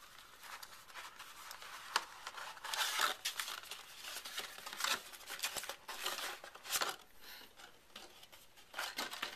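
Cardboard and paper packaging being handled and rustled while pieces are lifted out of a box: irregular crinkling and scraping, with a sharp tap about two seconds in.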